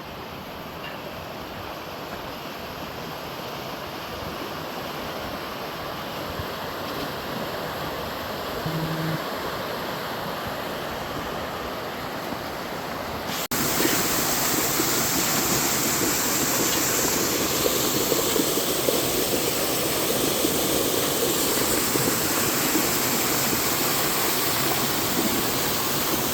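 Mountain stream rushing over rocks after light rain, a steady water noise that grows slowly louder and then jumps abruptly to a louder, fuller rush about halfway through.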